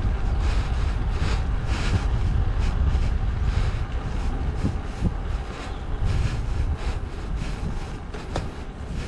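Wind buffeting the microphone over a steady low rumble while riding a bicycle, with a hiss that swells and fades over and over.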